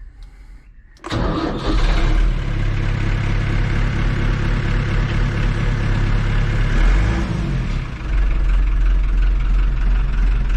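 Farm tractor engine started on the starter motor after a new ground cable was fitted to the starter. It cranks and fires about a second in, runs loud and steady, and settles to an even idle around eight seconds in.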